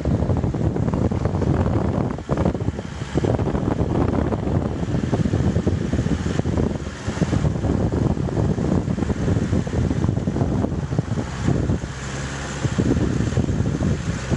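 A vehicle on the move with heavy wind buffeting the microphone, a dense, even rumble. Near the end an engine's steady tone shows through briefly.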